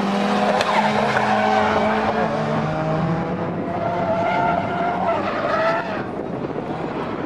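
Drift cars sliding through a corner: engines revving hard with wavering tyre squeal from the sliding tyres. The squeal is strongest just before the loudness drops away about six seconds in.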